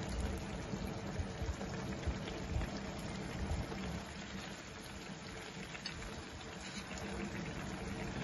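Paella rice and stock simmering in a wide pan on a gas stove: a steady bubbling with small pops and soft low thumps throughout.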